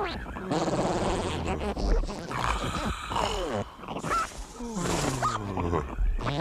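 Cartoon creature vocal noises: a run of growls, grunts and squeals that slide up and down in pitch.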